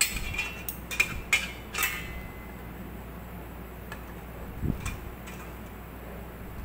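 A handful of sharp metallic clinks and taps with brief ringing, bunched in the first two seconds, as a whole chicken is shifted and propped on the metal rack in a pot. Later a soft bump and a couple of faint ticks.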